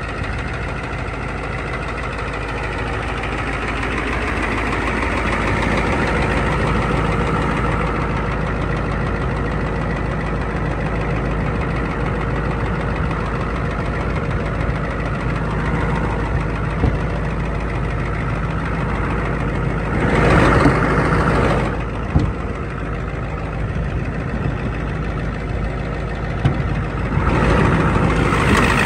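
1994 Ford F350's 7.3-litre IDI turbo-diesel V8 idling steadily. About two-thirds of the way in, and again near the end, there is a short, louder burst of rushing noise.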